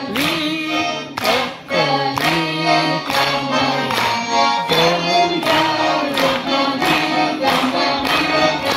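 Violin and accordion playing a lively folk tune to a steady beat, with a woman singing and the audience clapping along in time, about two claps a second.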